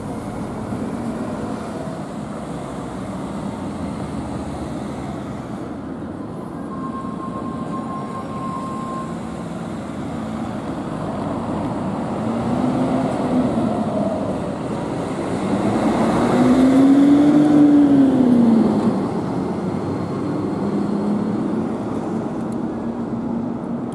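Iyo Railway Moha 2100 tram approaching on street track, its electric motor whine rising and falling in pitch twice, loudest about two-thirds of the way through, over steady street traffic noise.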